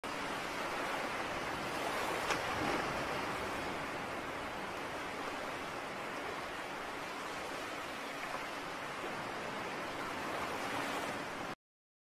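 Steady rushing noise, with a faint click about two seconds in. It cuts off abruptly near the end.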